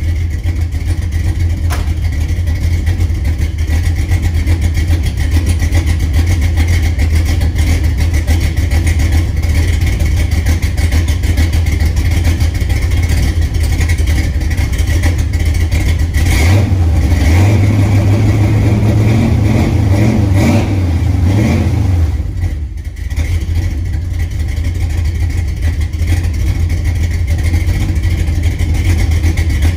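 The 350 V8 of a 1986 Chevy K20 pickup running steadily at idle, rising in pitch for several seconds about halfway through as it is revved, then settling back.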